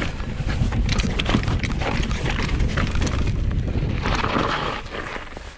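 Specialized mountain bike riding down a rocky dirt trail: wind buffeting the microphone, tyres crunching over dirt and stones, and the bike rattling and clicking over bumps. About four seconds in there is a louder hiss of tyres on loose dirt as the bike slows, and then the noise dies down.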